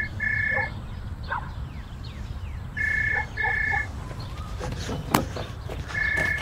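Telephone ringing in the double-ring pattern: pairs of short rings repeating about every three seconds. A single sharp click comes a little after five seconds.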